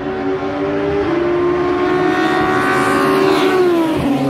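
Race car engine at high revs, approaching and growing louder, then passing close by with its pitch dropping near the end.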